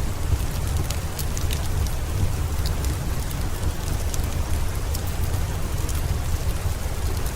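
Steady rain falling, with a deep rumble underneath and scattered sharp crackles from a fireplace.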